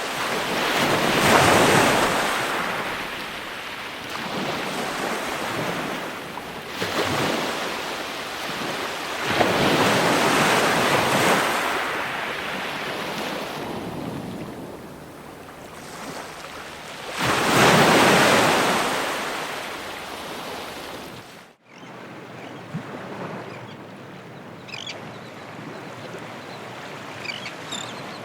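Ocean waves surging and breaking on a shore, rising and falling in four big swells. A little past two-thirds of the way through the sound breaks off abruptly and gives way to a softer, steadier wash of surf.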